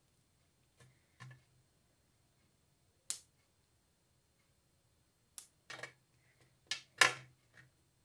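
Scattered small clicks and taps from handling pearl beads on nylon line and a small purple-handled cutting tool: a single sharp click about three seconds in, then a cluster of clicks in the second half, the loudest near seven seconds.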